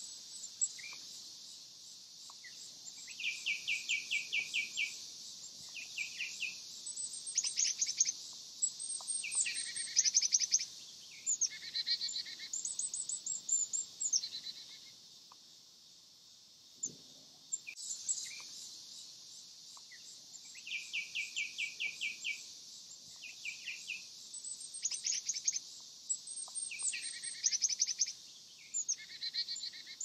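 Backyard songbirds singing and calling over a steady high hiss. One bird twice gives a quick run of about ten evenly spaced notes, the two runs about eighteen seconds apart.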